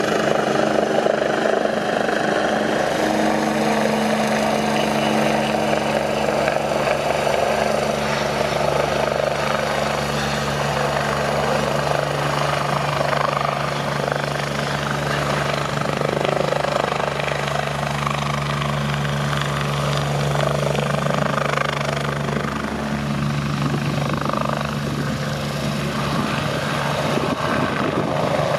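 MBB/Kawasaki BK117 B-2 twin-turbine helicopter hovering: steady rotor and turbine noise with a constant low hum.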